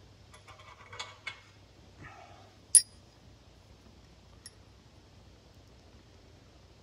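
Steel engine parts, head bolts among them, clinking together as they are picked out of a box by hand: a few light knocks, then one sharp ringing clink about three seconds in and a faint one a little later.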